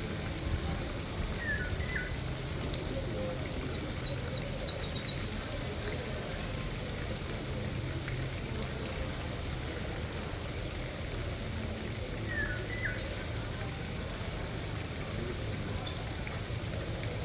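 Steady rushing flow of a river stream with birds calling over it: a short two-note call about a second and a half in and again about twelve seconds in, plus faint high chirps.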